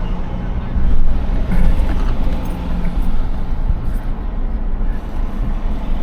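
A motor vehicle driving along, a steady loud rumble of engine and road noise.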